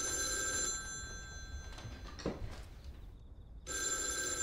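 Old desk telephone's bell ringing in two rings: the first stops about a second in, and the next starts near the end.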